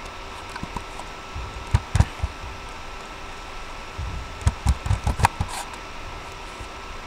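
Two short bursts of clicks and taps, one about two seconds in and a longer run around five seconds, typical of a computer keyboard and mouse being worked on a desk, over a steady electrical hum.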